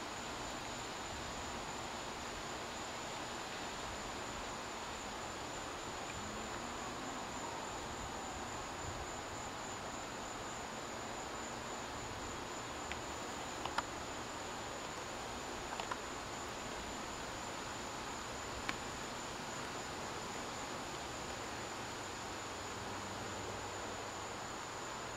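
Steady high-pitched insect chorus, held without a break over a faint hiss, with a few small clicks around the middle.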